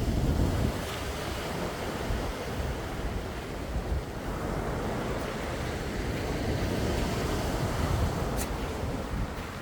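Sea waves washing in a continuous surge, loudest in the first second, with a low rumble of wind on the microphone.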